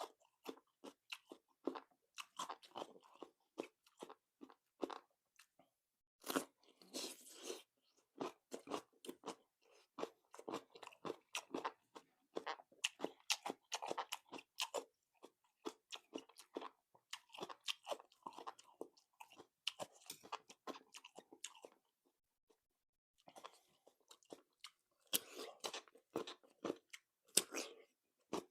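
Fresh raw cucumber being bitten and chewed close to the microphone, a steady run of wet, crisp crunches with a short pause about three quarters of the way through.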